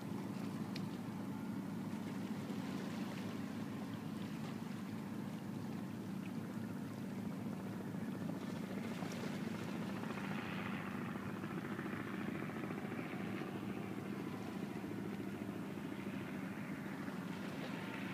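A steady low drone of several held tones sounding together as one sustained chord, with a rushing hiss over it that grows brighter about halfway through.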